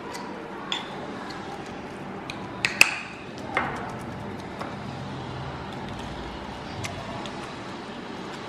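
Small metal potato masher pressing boiled potatoes in a ceramic bowl, with scattered light clinks of metal against the bowl.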